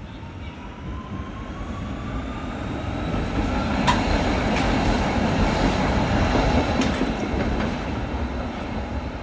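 Old Brussels PCC tram passing close by on street track. A motor whine rises in pitch as it approaches, the sound peaks as it goes past with a few sharp wheel clacks over the rail joints, and then fades as it moves away.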